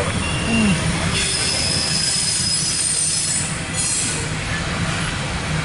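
Loaded CSX coal hopper cars rolling past with a steady low rumble. High-pitched steel wheel squeal rises over it from about a second in and stops about four seconds in.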